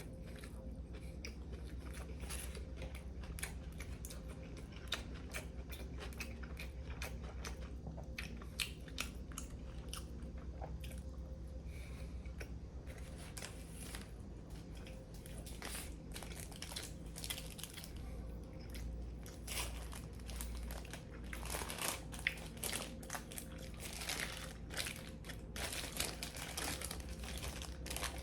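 Close-up mukbang eating sounds of a toasted Subway sandwich: biting into crisp bread and chewing, with dense irregular crunches and crackles, louder in the last third. A steady low hum runs underneath.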